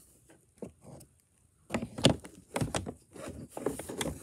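Plastic side cover of an inverter generator being pried loose and swung open: a series of sharp plastic clicks and knocks, starting about halfway through.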